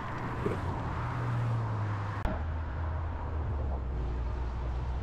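Steady outdoor traffic noise: a low hum of vehicle engines and tyres on the road. It changes abruptly a little over two seconds in, where the hum drops lower.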